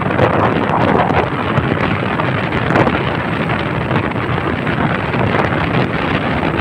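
Wind buffeting the microphone of a moving vehicle, a steady, loud rushing noise with no distinct engine note.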